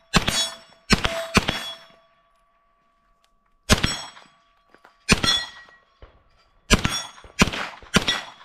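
Smith & Wesson FPC 9mm direct-blowback carbine firing about eight single shots at an unhurried, uneven pace, with a pause of about two seconds after the first three. A metallic ring hangs on between the shots.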